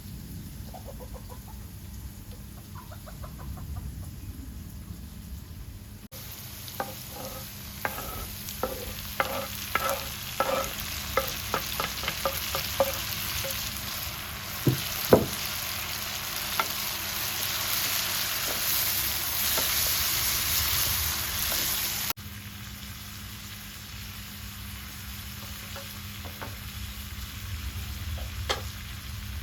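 Food sizzling as it fries in a pot over a wood fire, with a quick run of short chicken clucks over it. The sizzling starts abruptly after a few seconds of quieter sound with faint bird calls, and cuts off abruptly about three-quarters of the way through.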